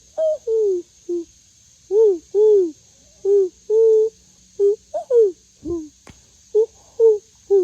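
A woman's voice making a string of short hooting, cooing calls, about two a second, some held level and some sliding down in pitch: coaxing noises to urge chickens in to roost.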